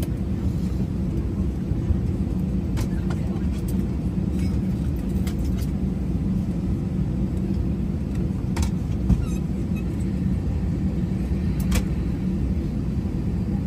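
Steady low rumble of an airliner cabin on the ground, with a few faint ticks scattered through it.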